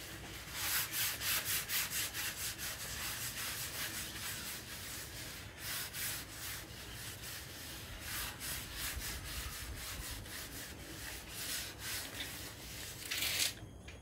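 Repeated rubbing strokes across a new barbecue hotplate, about three a second, as the plate is seasoned before its first use. The strokes stop shortly before the end.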